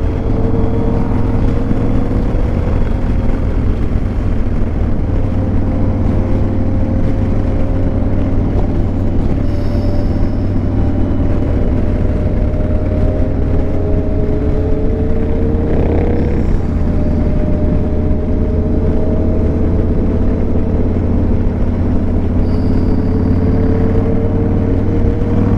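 Cruiser motorcycle engine running at steady road speed, heard from the rider's seat with wind rushing past; the engine note rises and falls slowly in pitch a few times as the throttle eases on and off.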